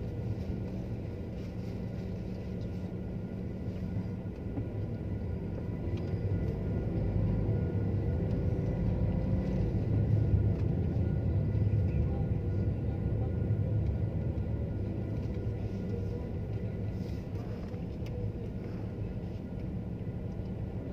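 Car engine and road noise heard from inside the cabin while driving slowly: a steady low rumble that swells through the middle and eases off again.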